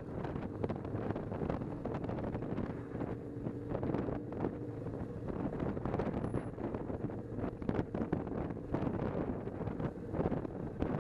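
Wind rushing over a motorcycle-mounted camera's microphone while riding at road speed, with the motorcycle's engine faintly humming underneath.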